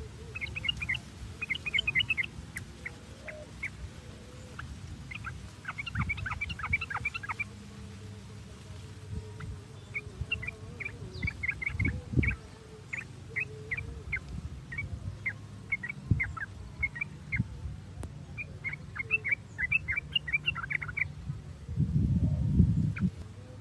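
Yellow-vented bulbul (trucukan) chattering in quick bursts of short, sharp notes, one cluster after another a second or two apart. Underneath is a low background rumble that swells briefly near the end.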